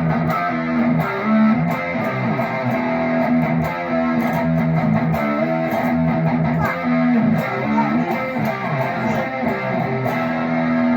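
Electric guitar playing a continuous run of notes and chords: a Squier Classic Vibe '50s Stratocaster partscaster with Wilkinson pickups, played through an amp to check its tone after the pickup heights were adjusted for a weak high end.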